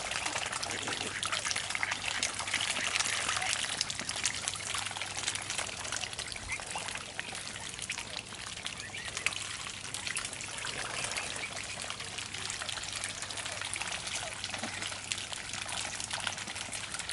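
Mute swans and cygnets dabbling at the water surface as they feed from a food ring: a dense, continuous patter of small splashes and slurps, busier in the first half.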